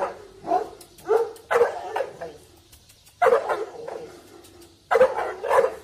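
Large dog on a chain barking loudly at a man in front of it, in short separate barks, some in quick pairs, with a pause of about a second near the middle. This is the dog barking at a handler who provokes it in guard or protection training.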